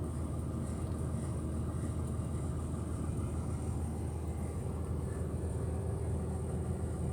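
Steady low hum and rumble of running machinery, with a constant mid-pitched tone over it.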